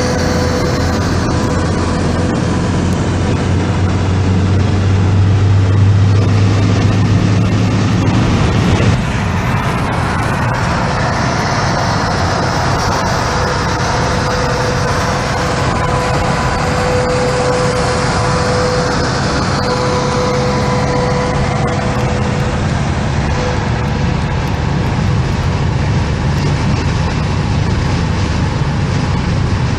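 Motorway traffic noise from a car running alongside a Scania R500 V8 truck. The truck's V8 diesel engine drones low for the first eight seconds or so, then drops away suddenly about nine seconds in, leaving steady tyre and wind noise with a faint steady whine.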